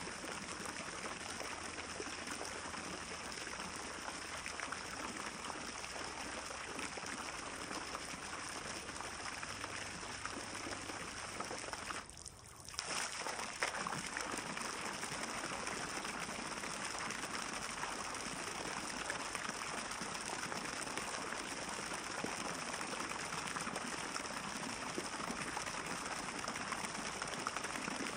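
Water steadily trickling and splashing from a garden grotto fountain into its pond, with a brief drop about twelve seconds in.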